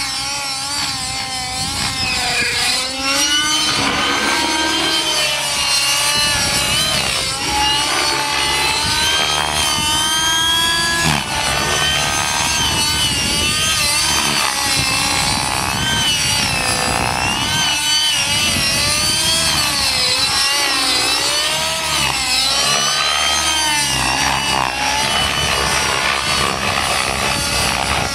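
Radio-controlled model helicopter's small combustion engine and rotor blades buzzing through aerobatic flight, the pitch rising and falling again and again as the engine and rotor speed change with each manoeuvre.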